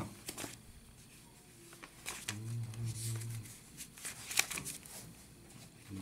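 Paper pages being flipped: soft rustling with several sharp page snaps. A short low murmured voice comes in about two seconds in.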